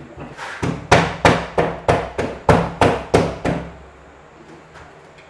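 A quick run of about ten knocks, roughly three a second, on a prefabricated bathroom pod's wall panel, striking it to seat it where it is not flush against the base.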